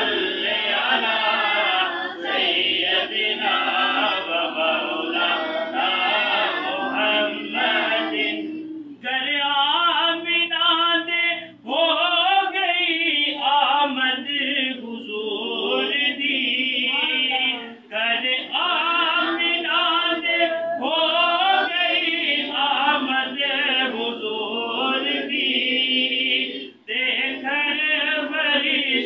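A group of voices chanting a devotional recitation together, the melody rising and falling in phrases with short breaks for breath between them.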